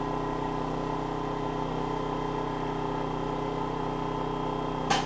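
Maxpeedingrods MXR4000GT inverter generator running steadily while powering a QuickJack car lift's electric hydraulic pump, with a short knock about five seconds in.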